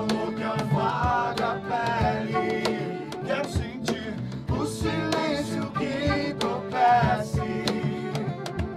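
Acoustic band playing a song: a man and a woman sing together over strummed acoustic guitar, with percussion strikes keeping a steady beat.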